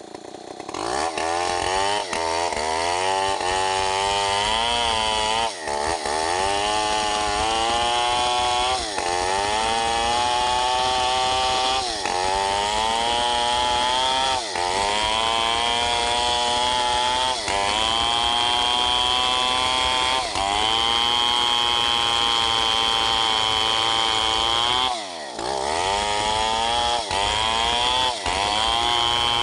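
Stihl 070 two-stroke chainsaw cutting into a red teak log. It revs up about a second in and then runs at high revs under load, its pitch sagging and dipping briefly every few seconds.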